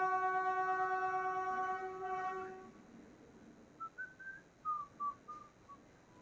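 A diesel locomotive horn sounds one steady blast of about two and a half seconds. After it, a bird gives a run of short chirps that slide up and down.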